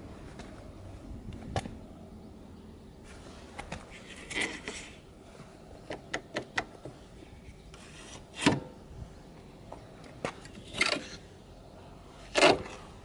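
Scattered clicks, knocks and a few short scrapes of something being handled, with no engine running.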